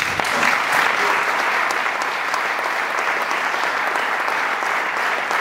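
An audience applauding: dense, steady clapping that breaks out all at once as a speech ends.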